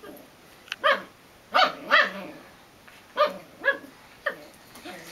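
Belgian Malinois puppy barking at its own reflection in a mirror: about six short, high-pitched barks in quick groups, the loudest around a second and two seconds in.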